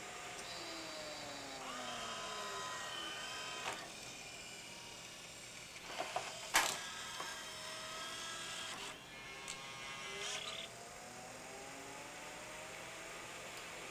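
Pioneer CLD-3070 LaserDisc player changing sides with its Alpha Turn auto-reverse mechanism. The disc spindle winds down with a falling whine, and small motors whir as the optical pickup is carried round to the other side of the disc. A sharp clack comes about halfway through, then more whirring, and the spindle spins back up with a rising whine.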